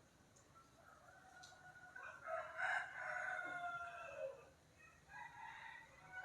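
Rooster crowing: one long crow starting about two seconds in that drops in pitch at its end, followed by shorter calls near the end.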